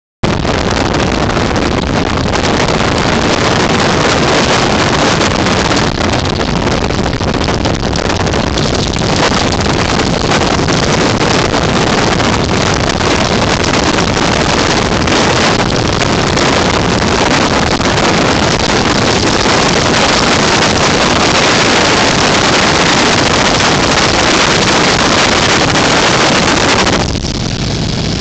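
A North American T-6 Texan's nine-cylinder Pratt & Whitney R-1340 Wasp radial engine and propeller running loud and steady, heard aboard the airplane with wind buffeting the microphone. The sound gets somewhat quieter about a second before the end.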